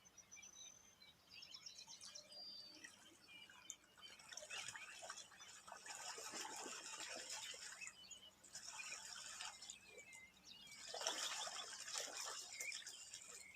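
Small birds chirping with thin, high notes, then water splashing in three bursts from about four seconds in.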